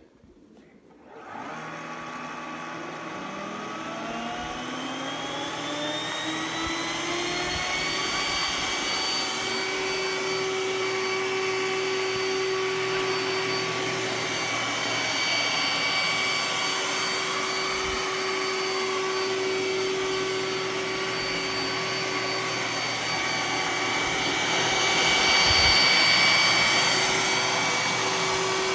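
Roomba s9 robot vacuum starting a spot clean: about a second in its motor starts and spins up with a rising whine over several seconds, then runs at a steady pitch with a constant hum. It grows briefly louder near the end.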